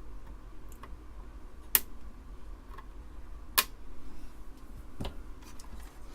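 Sharp clicks from small tools and parts being handled at an electronics workbench: two loud clicks about two seconds apart and a fainter one near the end, over a steady low hum.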